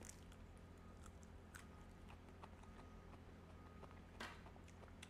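Near silence with faint chewing of a crisp lettuce leaf: scattered soft crunches and one slightly louder one about four seconds in, over a low steady hum.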